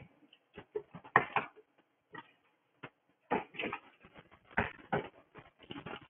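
Irregular light clicks and taps, a few a second, some in quick little clusters.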